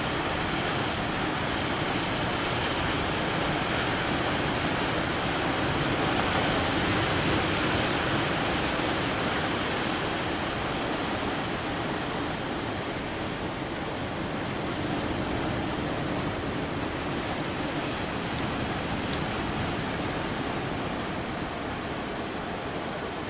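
Steady rush of big waves breaking in heavy surf, swelling a few seconds in and then easing off.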